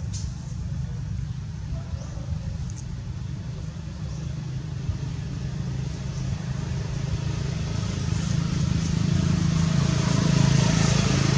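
A motor vehicle's engine running: a steady low rumble that grows louder over the last few seconds as it approaches.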